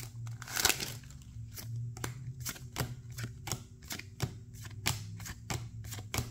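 Trading cards from a freshly opened booster pack being flicked one by one to the back of the stack, a light snap about three times a second, after a brief rustle near the start. A steady low hum runs underneath.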